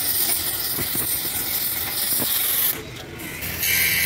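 Gas welding torch flame hissing steadily as it heats and welds a repair on a truck cylinder head, dropping away briefly about three seconds in.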